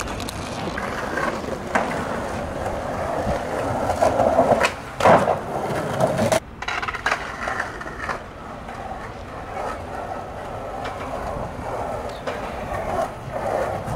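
Skateboard wheels rolling over a plank deck, a steady grinding rumble, with a few sharp clacks about two and five seconds in.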